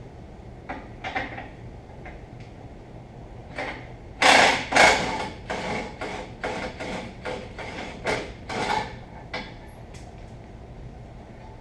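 Hand tools working on a steel axle bracket of a truck: a few scattered knocks, then from about four seconds in a run of about a dozen sharp metallic knocks, two to three a second.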